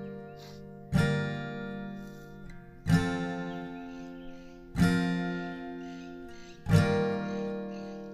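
Background music: acoustic guitar strumming slow chords, four in all, about one every two seconds, each left to ring and fade before the next.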